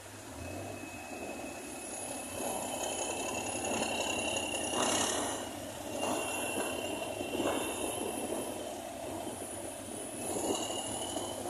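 Heavy road-paving machinery running: the diesel engines of a Roadtec asphalt paver and a dump truck, with a high squeal that comes and goes and some rattling. A brief hiss about five seconds in.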